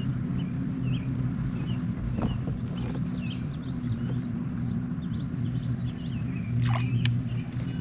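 A steady low motor drone runs throughout and is the loudest sound. Birds chirp repeatedly over it, with a few faint clicks.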